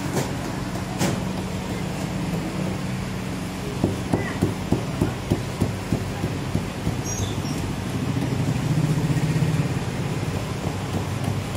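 Steady low machine hum. About four seconds in comes a quick run of about ten sharp taps, roughly four a second, and the hum swells for a second or so near the end.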